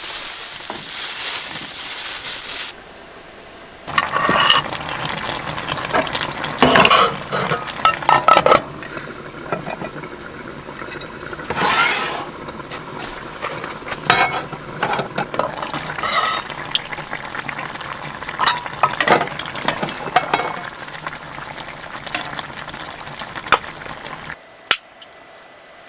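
Food sizzling in a hot pan, then a utensil stirring and scraping against the pan in repeated clinks and scrapes, with a steady low hum beneath.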